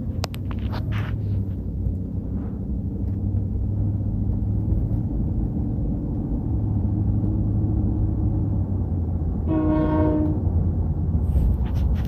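A diesel locomotive horn sounds one short blast of about a second, a held chord of tones, about ten seconds in. Under it runs a steady low engine rumble.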